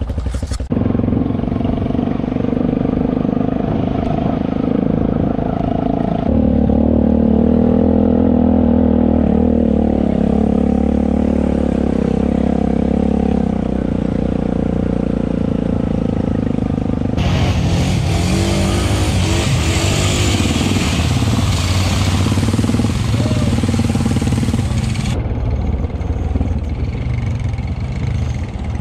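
Honda ATV's single-cylinder engine running under way along a dirt trail, its note shifting as it speeds up and slows. Past the middle, a loud rushing hiss joins for several seconds.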